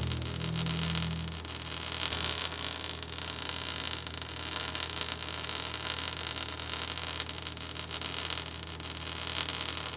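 Steady static-like hiss with a faint flicker, over a low steady hum. The last low notes of the preceding music die away about a second and a half in.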